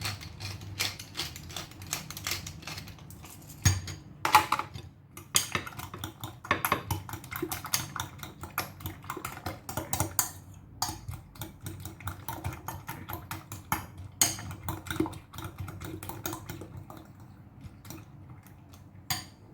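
Utensil clinking and tapping against a dish in many quick, irregular taps, with a few louder knocks, thinning out near the end.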